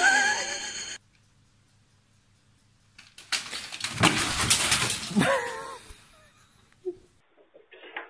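Clatter as a cat falls from the top of a shelf stacked with records and CDs, knocking against them, with a short wavering cry just after.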